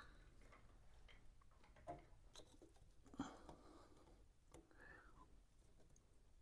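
Near silence with a few faint clicks and rustles from hands working a small white plastic multi-pin wiring connector, pressing its lock tab to unplug it.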